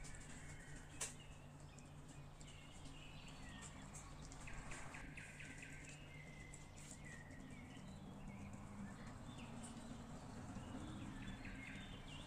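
Faint small birds chirping in the background over a low steady hum, with one sharp click about a second in.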